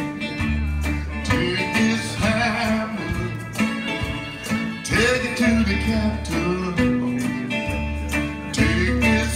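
Live acoustic blues: a 12-string acoustic guitar played with a steady rhythm and deep bass notes, while a man sings a railroad work song.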